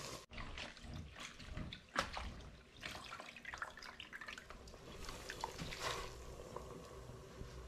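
Water dripping and splashing as wet rice noodles are lifted out of a tub of soaking water by hand and put into a pot of water, with scattered small wet ticks and a sharper knock about two seconds in.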